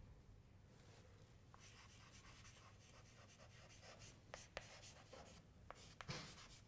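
Chalk scratching across a blackboard as words are written, faint. It starts about a second and a half in and carries several sharp taps of the chalk against the board.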